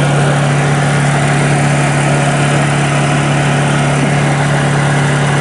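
Honda EU2000i inverter generator's single-cylinder four-stroke engine running steadily on propane through a GenConneX conversion kit. Eco mode is switched off, so it holds its normal-mode speed.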